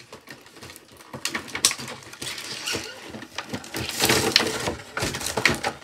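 Irregular clicks, light knocks and rustling of objects being handled and moved around by hand, busier about two thirds of the way through.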